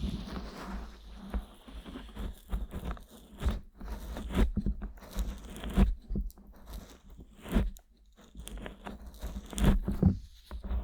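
Fingers rubbing and kneading the silicone earflaps of a 3Dio binaural microphone, close up: irregular crackling, crunchy strokes with a few louder pops.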